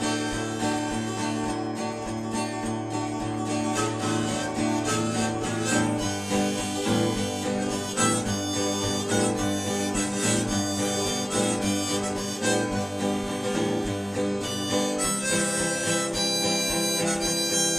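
Background music: a harmonica playing a tune over acoustic guitar accompaniment.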